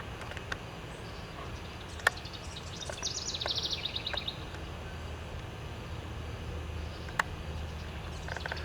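A songbird sings a rapid trill, falling slightly in pitch, about three seconds in, over a steady low outdoor rumble. Two sharp clicks stand out, one about two seconds in and one near the end.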